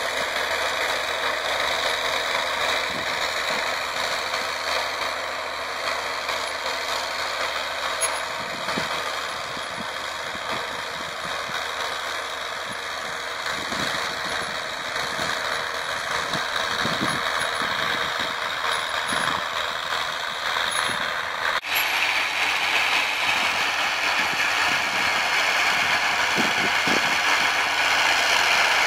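Massey Ferguson MF 1078 tractor, fitted with a new engine, running steadily under load as it pulls a disc harrow through the soil. The sound jumps up sharply about two-thirds of the way in and stays louder after that.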